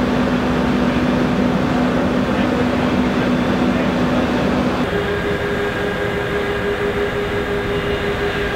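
Steady rumble of engine and traffic noise with a constant low hum; the hum jumps higher in pitch about five seconds in.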